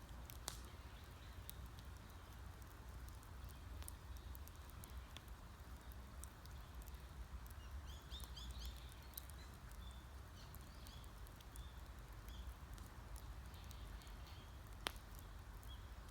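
Wood campfire crackling, with scattered pops, the sharpest one near the end, over a low steady rumble. Small birds chirp in short bursts in the middle.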